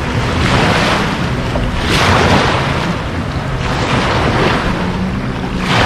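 Waves washing in, surging about every one and a half to two seconds, with wind on the microphone and a low steady hum underneath.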